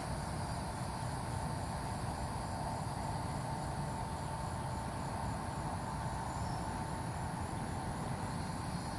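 Steady outdoor background of insects chirring, with a thin steady whine and faint regular high ticks over a low rumble.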